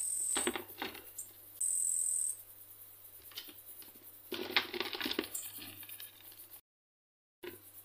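Two katydids, a wart-biter and a Sedakov's katydid, grappling in a plastic box: light scratching and clicking of their legs scrabbling on the plastic, in two spells. Two short, high, steady buzzes sound in the first couple of seconds.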